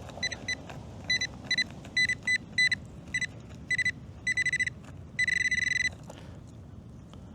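Nokta Triple Score metal detector giving repeated short beeping tones as the coil sweeps back and forth over a target, then a longer buzzing tone about five seconds in. The target is a shallow piece of foil that reads a solid 17 on the display.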